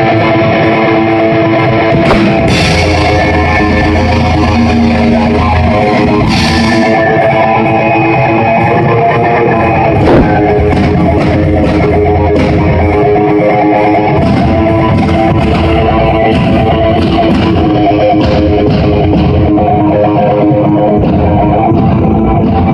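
Djent metal band playing live: heavily distorted electric guitars with drums, loud and harshly recorded.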